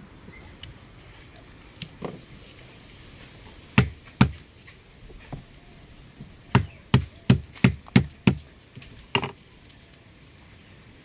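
Knife chopping garlic on a cutting board: a few scattered knocks, then a quick run of about six strokes in the middle, and one more a little later.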